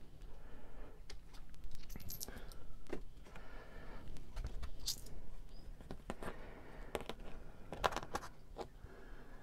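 Irregular handling noise: small metal medallion coins clicking and clinking, with crinkling of card and foil packaging.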